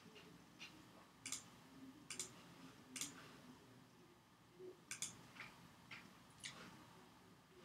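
Faint computer mouse clicks, about ten sharp clicks at irregular gaps of half a second to two seconds.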